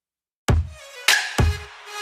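Background music with a steady drum beat, starting suddenly about half a second in after a moment of silence.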